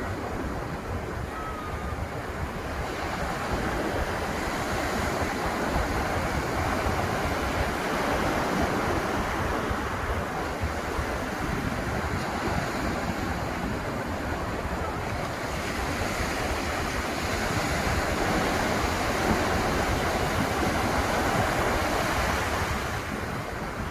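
Atlantic Ocean surf breaking and washing up the beach, swelling and easing twice in long waves.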